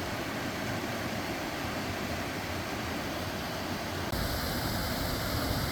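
Steady rush of a creek's waterfalls and cascades, a constant hiss of falling water; about four seconds in the sound shifts abruptly and grows a little louder.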